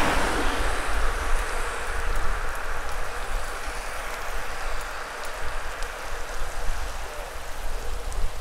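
Wind buffeting the microphone and bicycle tyres rolling on asphalt while riding along a road at speed: a steady rushing noise with a low rumble underneath.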